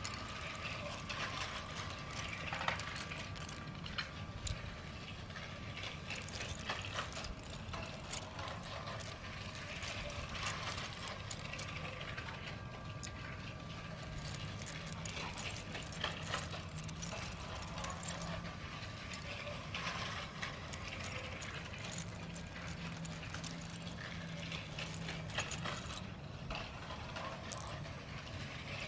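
Battery-powered LEGO trains running on plastic LEGO track: a continuous rattle of many small clicks from wheels running over the track joints, with a thin steady motor whine heard at times.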